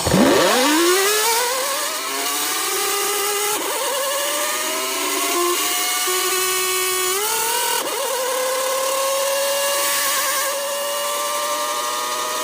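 Siren winding up from a standstill. Its pitch sweeps up steeply in the first second, then keeps rising slowly for the rest of the time, with a couple of small jumps up, as it nears its full wail.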